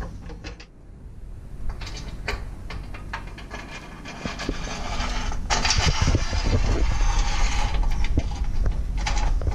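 Metal eye bolt being twisted by hand on its channel nut in the slot of a roof-rack platform: scattered metal clicks at first, then a denser, louder scraping rattle from about halfway through.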